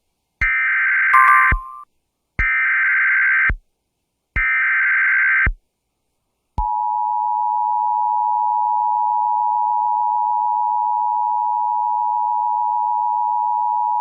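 Emergency Alert System signal: three one-second screeching data bursts of the SAME header, a second apart, then the steady two-tone attention signal, a harsh pair of tones just under 1 kHz, starting about a second after the last burst and held. A brief extra tone overlaps the end of the first burst.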